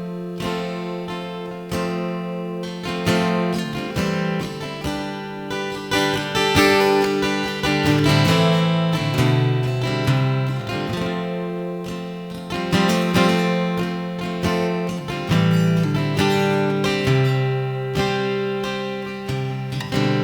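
Acoustic guitar played alone in an instrumental passage, chords strummed and picked with the notes ringing between strokes.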